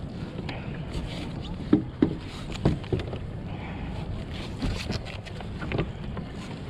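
Water sloshing against a fishing kayak's hull, with a few scattered knocks and splashes.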